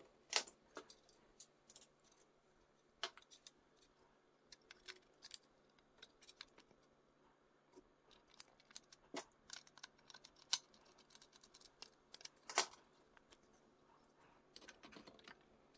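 Scattered light clicks and taps of a small screwdriver working screws and 3D-printed plastic bumper parts knocking against each other as they are handled. The sharpest clicks come about 3, 9 and 12 seconds in.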